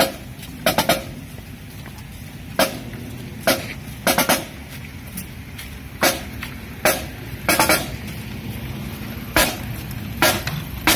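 Marching drumline's snare drums tapping out a sparse marching cadence of sharp stick clicks: two single strokes and then a quick triple, repeating about every three and a half seconds, to keep the band in step.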